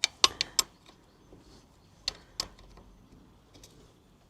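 Sharp metal-on-metal clicks and clinks of small fittings and tools being worked loose by hand. There are four quick ones in the first second and two more about two seconds in.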